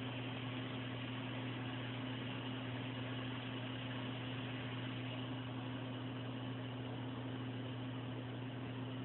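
A steady low hum with a constant hiss over it.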